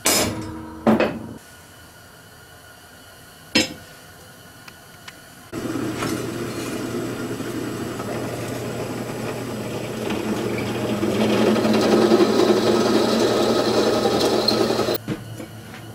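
Three hammer blows on a punch marking the mild steel ring, then a drill press starts about five and a half seconds in and runs with a steady hum while a step drill bit cuts through the steel flat bar, the cutting noise growing louder before the press stops near the end.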